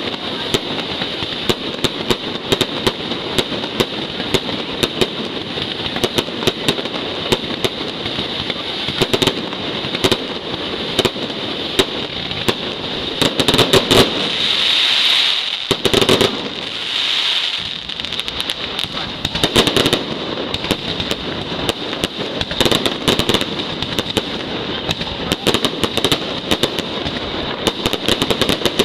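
Mascletà firecracker barrage: a dense, unbroken string of sharp cracks and bangs, swelling into two louder surges about halfway through.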